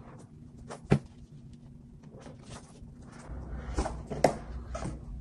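A cardboard iPad Pro box being handled and opened: a sharp knock about a second in, then from past the middle a low scraping rub with a few knocks and rustles as the lid is worked off the box.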